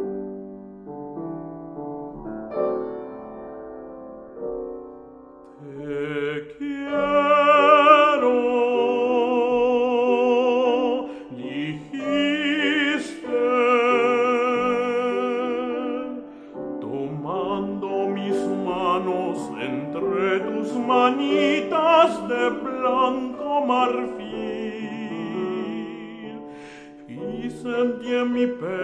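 Piano playing alone, then a classically trained tenor voice enters about six seconds in, singing with a wide vibrato over the piano accompaniment.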